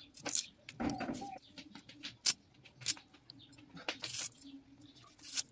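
Small knife scraping and slicing a stem-amaranth stalk, stripping off its fibrous skin: a string of short crisp scrapes and clicks, a few of them sharper snaps. A bird calls in the background.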